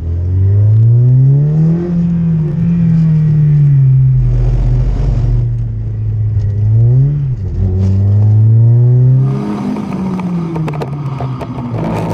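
Peugeot 106 Rallye's four-cylinder engine under hard driving. The revs climb over the first couple of seconds and ease back, then dip, rise sharply and drop again past the middle. In the last few seconds a rush of wind noise joins the engine.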